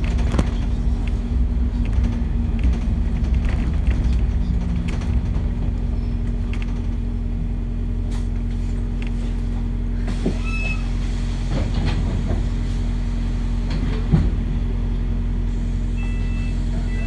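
A New Routemaster hybrid double-decker bus heard from inside on the upper deck: a steady low drivetrain hum and rumble as the bus rolls to a halt, then stands still. A few faint clicks and short high beeps come about ten seconds in and again near the end.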